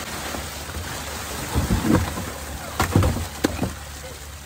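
Slushy ice and water pour out of a plastic paddle boat onto dry leaves as it is tipped up on end, with the leaves crunching underfoot. Several hollow knocks of the plastic hull come in the middle.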